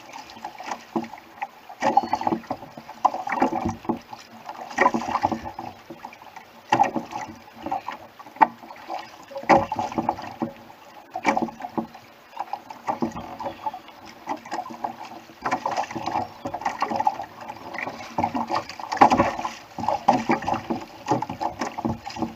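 Water slapping and splashing against the hull of a Hobie Adventure Island sailing kayak under way through choppy sea, in irregular surges every second or two.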